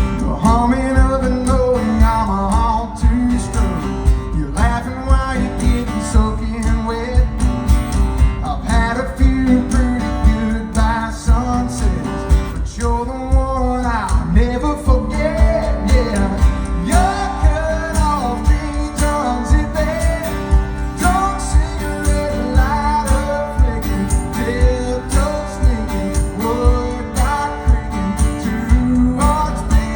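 Country song: a lead vocal sung over guitar, with a steady beat.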